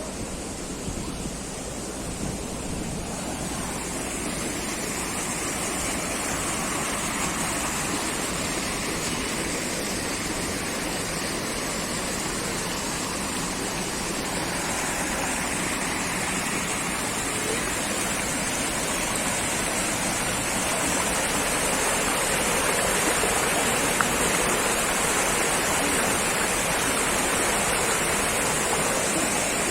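Rushing spring water cascading, a steady hiss that grows gradually louder.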